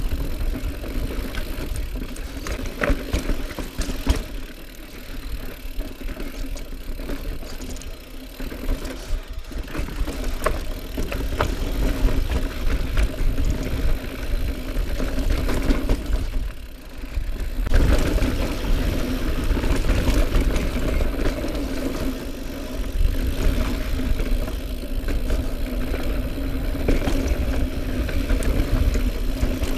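2018 Norco Range mountain bike riding over rocky dirt and sandstone singletrack: steady tyre noise with the bike rattling and knocking over bumps, and a steady low hum underneath. It goes quieter for a few seconds early on and again briefly past the middle.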